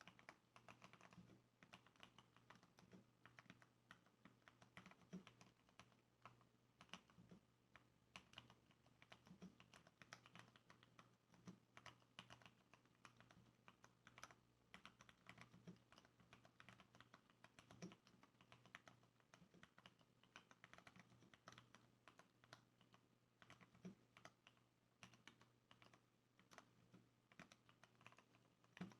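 Continuous fast typing on a Varmilo mechanical keyboard with lubricated Cherry MX Brown switches and sound-dampening foam: quiet, muted key clacks in a steady stream, with a deeper thump every couple of seconds.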